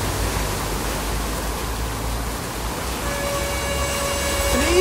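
Steady rush of floodwater and heavy rain pouring across a street. About three seconds in, a long steady high tone joins it and holds one pitch.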